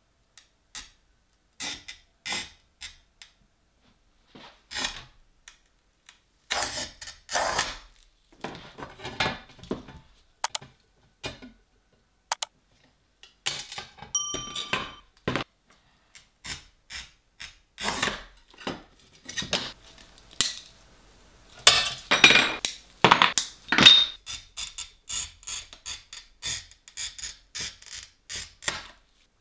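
Oil-fed glass cutter scoring sheets of stained glass: irregular scratchy strokes, some about half a second long, with short clicks and taps of glass in between and a brief ring of glass about halfway through. The loudest strokes come near the end.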